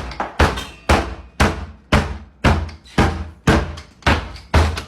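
Heavy, evenly spaced knocking or pounding, about two deep thuds a second and nine in all, with a machine-like regularity; it dies away right at the end. It is the recurring knocking in the apartment whose cause is unknown.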